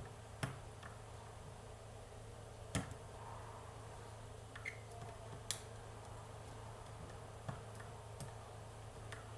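Lock pick and tension bar working the pin stack of a Pollux 7 lock: sparse, irregular sharp metal clicks, about six or seven, the loudest about three seconds and five and a half seconds in, over a steady low hum.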